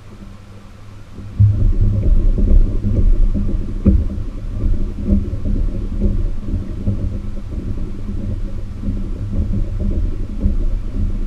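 Low wind rumble buffeting the camera microphone as the kayak gets under way, starting abruptly about a second and a half in, over a faint steady hum.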